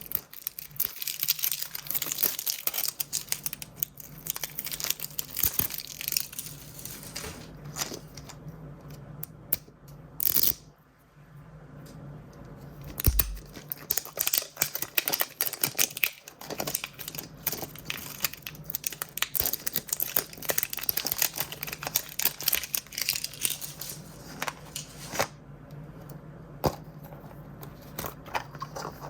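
Blind-bag toy packaging being crinkled and torn open by hand: dense crackling of the wrapping, with one short loud rip about ten seconds in and a dull thump a few seconds later.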